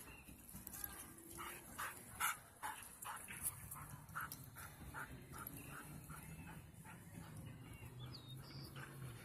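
Dogs barking in a run of short, sharp barks, about two a second, easing off toward the end.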